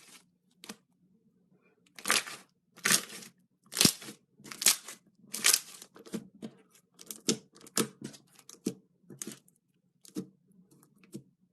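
Crunchy slime being squeezed and pressed by hand, giving a run of crackling crunches about one a second. The loudest come in the first half, and they get softer near the end.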